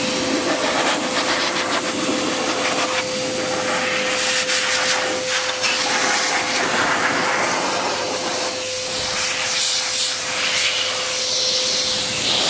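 Bruhl motorcycle dryer running: a steady whine from its blower motor under a rush of air from the hose nozzle. The rush swells and changes as the nozzle is swept over the wet motorcycle, blowing the water off.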